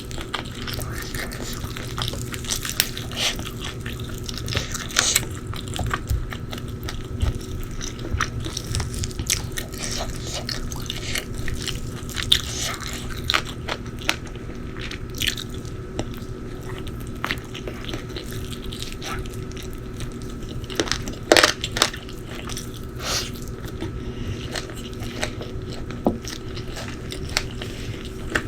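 Close-miked eating: irregular bites and chewing with sharp crunches, the loudest crunch about two thirds of the way through.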